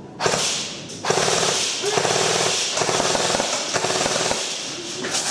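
Airsoft rifle firing on full auto: a fast, rattling stream of shots in several back-to-back bursts, starting about a second in.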